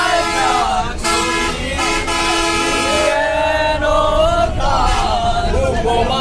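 A group of young men singing loudly together inside a moving bus, over a low engine rumble. A steady held tone sounds from about a second in until about three seconds in.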